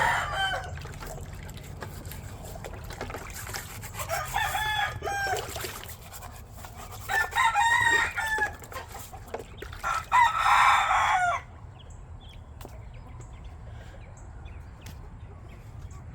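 Roosters crowing: about four long crows, a few seconds apart, followed by a quieter stretch.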